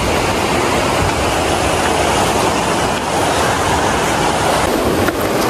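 Steady rush of a fast mountain river running over boulders, with wind buffeting the microphone as a fluttering low rumble.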